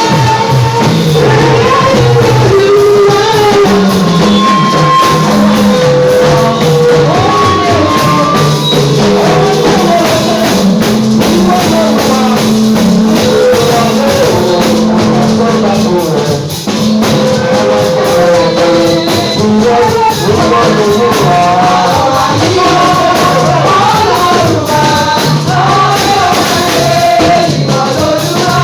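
Worship singing with a rhythmic percussion accompaniment, loud and continuous.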